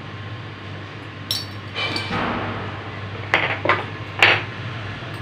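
Spice containers handled on the kitchen counter: a knock with a brief metallic ring about a second in, a short scrape, then three sharp clicks of lids and jars.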